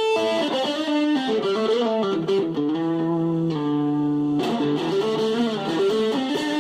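Fender Stratocaster electric guitar played through an amp on its neck pickup: a melodic phrase of held notes and quicker runs of single notes.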